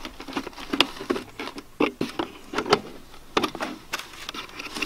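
Corrugated plastic sock pipe being handled and straightened: irregular plastic clicks and crinkling of the ribbed pipe and its fabric filter sock.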